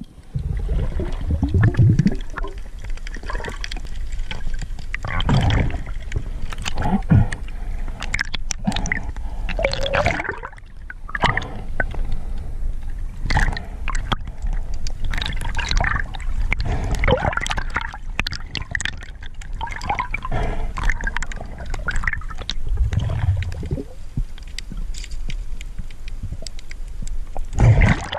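Water gurgling and sloshing heard underwater, in irregular surges, as a spearfisher swims and dives.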